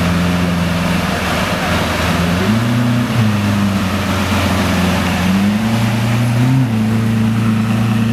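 Lamborghini Aventador Roadster's V12 engine idling steadily, its pitch rising a little a couple of times.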